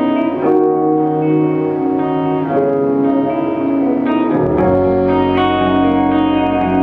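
Live band playing: electric guitars and keyboards over sustained chords, with a deep bass coming in about four and a half seconds in.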